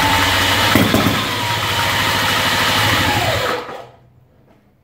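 Ducati 350 engine being spun over by an electric roller starter under the rear wheel, a loud steady run with a whine over it, which winds down and stops about three and a half seconds in.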